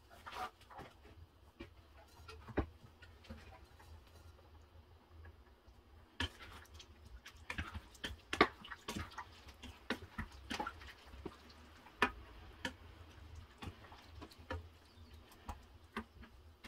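Wooden spoon tapping and scraping against a stainless steel saucepan as a thick vegetable sauce is stirred: irregular clicks and knocks, sparse at first and coming thick and fast from about six seconds in.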